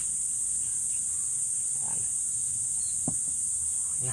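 Steady high-pitched drone of insects chirring. A brief short call or knock sounds about three seconds in.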